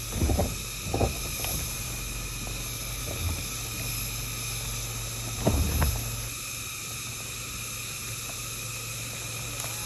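Ford Escape SUV running at low speed as it creeps down a rocky dirt trail, a low steady hum that fades about six seconds in. A few dull thumps come near the start, about a second in and about five and a half seconds in, over a steady high insect drone.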